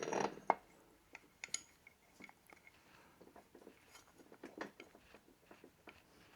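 Small metal engine parts being handled and test-fitted by hand: a scraping rattle in the first half second, then scattered light clicks and taps.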